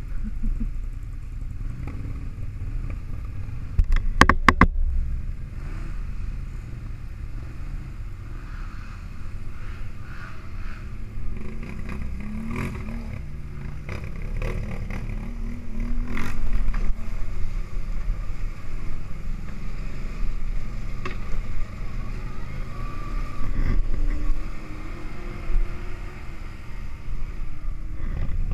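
ATV engine running under way over rough trail, revving up now and then, with the machine rattling and knocking over bumps; a sharp burst of rattling clatter about four seconds in is the loudest moment.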